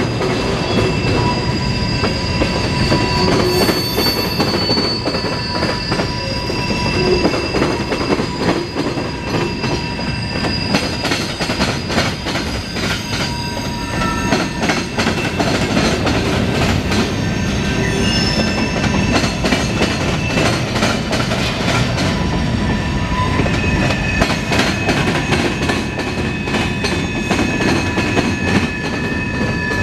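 Freight cars of a passing CSX mixed freight train, their steel wheels rumbling and clicking steadily over the rails. High thin wheel squeal comes and goes throughout, from the flanges as the train rounds the curve.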